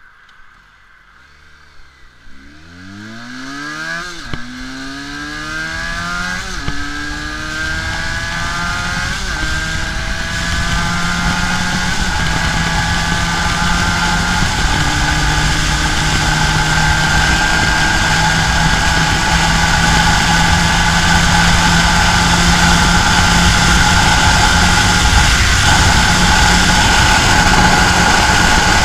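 Benelli 302R's 300 cc parallel-twin engine pulling away from a standstill under full throttle. The note rises steeply and drops at three quick upshifts in the first ten seconds, then climbs slowly and levels off at high revs near top speed. Wind rush grows louder with the speed.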